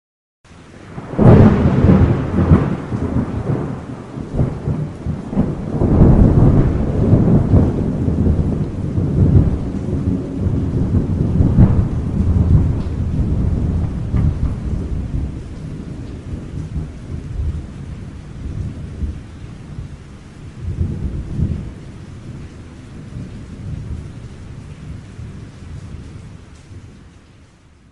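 Thunder: a sudden loud crack about a second in, then long rolling rumbles that swell several times, ease off, rise briefly again about three-quarters of the way through and die away. Steady rain hiss runs underneath.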